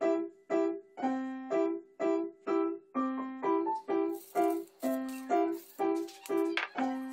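Background electric piano music, repeating notes about twice a second. From about halfway in, a seasoning shaker rattles and crackles as it is shaken over cut napa cabbage in a bowl.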